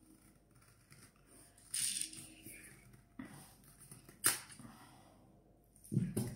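A plastic kefir bottle being opened: a brief rustle, then two sharp clicks from the cap. Near the end, thick kefir starts glugging out of the bottle into a pot.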